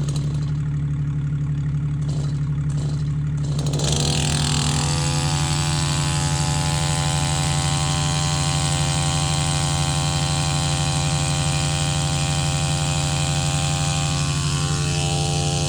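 Small chainsaw idling, then throttled up about four seconds in and held at high revs, as for a back cut on a tree branch.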